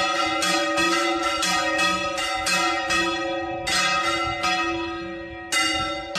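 A swinging church bell ringing, struck roughly twice a second with each stroke ringing on. The strokes pause for nearly two seconds, letting the tone fade, then start again near the end.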